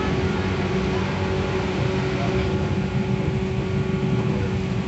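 JR West 117 series electric train running, heard from inside the passenger cabin: steady rumble of wheels on rail with a constant hum from the traction motors and gearing.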